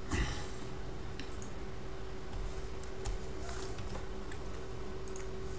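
Scattered light clicks from a computer mouse and keyboard, with a few soft rustles, over a steady low hum of room and microphone noise.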